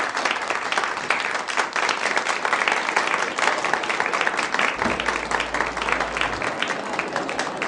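Audience applauding: many hands clapping at once, easing off a little near the end.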